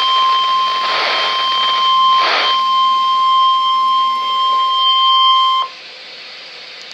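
Weather radio warning alarm: a loud, steady single tone with a few swells of hiss over it, sounding for a severe thunderstorm warning. It cuts off suddenly about five and a half seconds in, leaving faint radio hiss.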